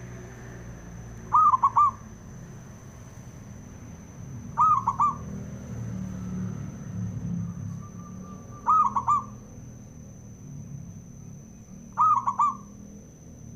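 Male zebra dove (perkutut) calling: four short coos about three to four seconds apart, each a quick run of three or four notes.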